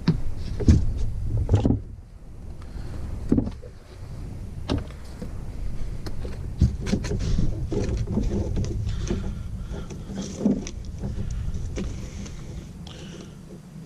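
Handling noise from work on wiring at a junction box: scattered clicks, knocks and rustling over a low steady rumble.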